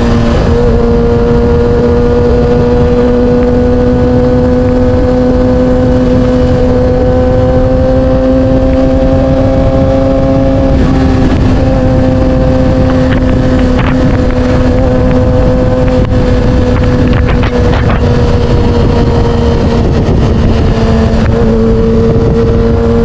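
Yamaha R6's 600cc inline-four engine running at steady, fairly high revs under way. The pitch is held nearly constant, with a brief dip about eleven seconds in.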